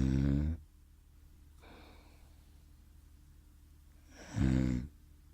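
A sleeping person snoring: one loud snore ends about half a second in, a soft breath out follows near 2 s, and a second, shorter loud snore comes near the end.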